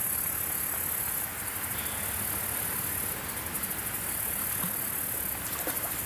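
A high-pitched insect chorus, such as crickets or katydids, runs steadily and pulses in stretches, over a steady rushing background noise.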